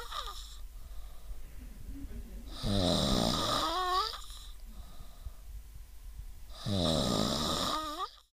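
Snoring in slow, even snores about four seconds apart, each about a second and a half long with a wavering pitch. One snore is ending at the start, two more follow, and the last cuts off suddenly near the end.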